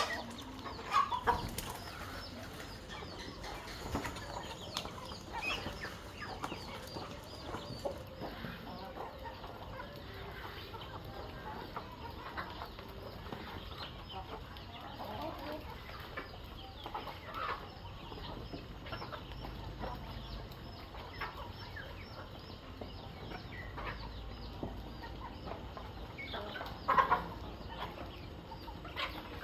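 A flock of domestic chickens clucking, with short scattered calls throughout and a few louder calls about a second in and again near the end.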